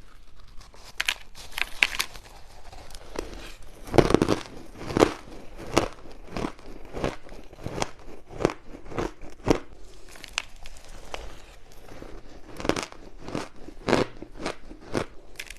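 Frozen matcha ice being bitten and chewed: a run of sharp, crunchy cracks, about one or two a second, loudest about four seconds in and again near the end.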